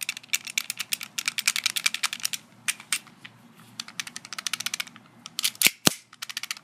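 KWA G26c airsoft gas blowback pistol rattling as it is shaken in the hand. A fast run of clicks fills the first two seconds or so, then scattered clacks follow, with a few louder knocks about five and a half seconds in. The rattle comes from a loose barrel that seems to wiggle around a lot.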